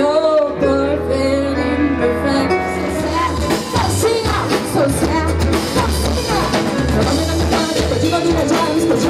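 Live band music: a woman singing into a microphone over a drum kit and bass. About two and a half seconds in it switches to another, harder rock song with heavier drumming and a pounding bass line.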